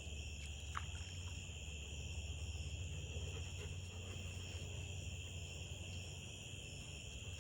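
Steady chorus of night insects trilling at two high pitches, with a continuous low hum underneath and a couple of faint ticks about a second in.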